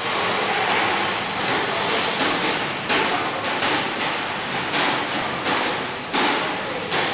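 Stainless-steel drinking tumblers being set down one after another on steel dining tables: sharp metallic clacks, roughly one or two a second at uneven spacing, each ringing out in the echo of a large hall.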